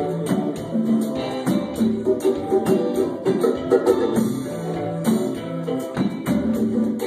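A band playing: plucked guitar with a steady shaken tambourine-like percussion over a bass line.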